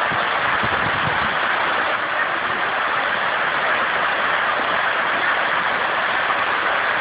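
Small stream waterfall rushing steadily: a constant, even wash of falling and splashing water.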